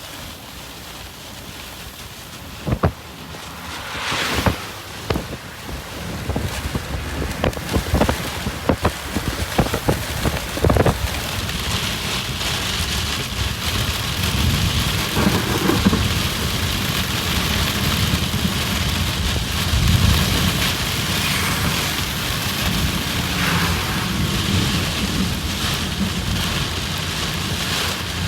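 Heavy rain and strong wind gusts from a thunderstorm downburst: scattered drops striking close by at first, building over about ten seconds into a steady, loud downpour with wind rumbling underneath.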